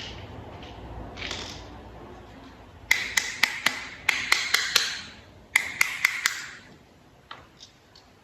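Small toy-vehicle parts clicking and rattling as they are handled and fitted together: three short bursts of quick, sharp clicks about a second apart, with a few fainter ticks near the end.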